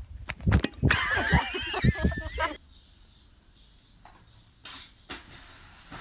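An object thrown onto thin lake ice, striking it in a run of sharp knocks while warbling, whistling tones ring through the ice. It cuts off suddenly after about two and a half seconds, leaving a quiet stretch with a couple of soft knocks.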